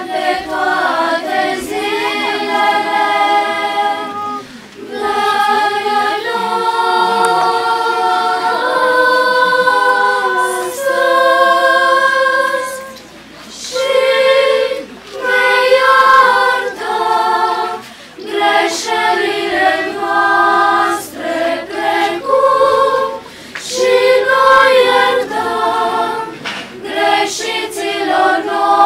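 Girls' choir singing unaccompanied, in sustained phrases with short breaks between them.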